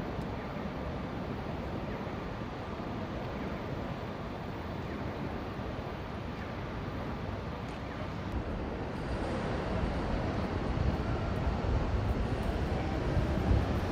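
Outdoor city ambience: a steady hum of distant road traffic, growing louder and rougher in its low rumble from about nine seconds in.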